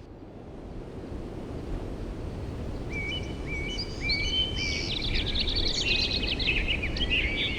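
Outdoor nature ambience fading in: a steady low rushing noise, joined about three seconds in by several birds chirping and singing, getting busier toward the end.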